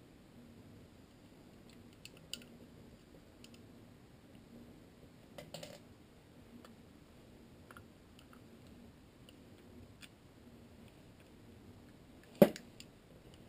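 Scattered small clicks and taps of an Allen key and small parts being worked into a Hi-Capa pistol's frame, with a cluster of taps about five and a half seconds in and one sharp, loud click near the end.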